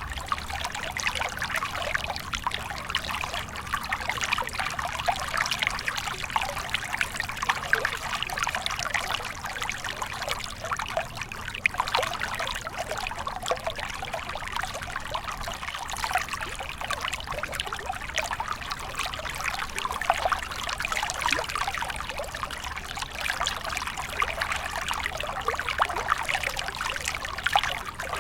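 Water stream flowing, a steady trickling and babbling with many small rapid splashes.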